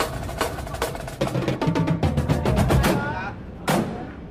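Street-parade percussion playing: sharp drum strikes a little under half a second apart, a fast roll of strikes through the middle, then one hard single hit near the end.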